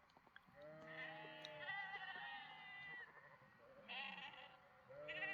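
Domestic sheep bleating, faint: one long bleat, then two shorter bleats near the end.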